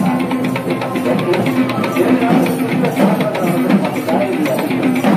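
Live traditional Kandyan drumming playing a fast, steady beat for the dancers, with a steady held tone sounding alongside.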